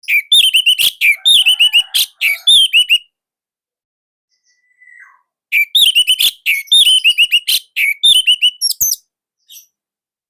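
Orange-headed thrush (anis merah) singing: two phrases of fast, tightly packed, loud high notes, each about three seconds long, with a pause of about two and a half seconds between them.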